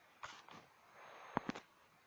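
A few faint, sharp clicks or taps over quiet room noise, the loudest a quick pair about one and a half seconds in.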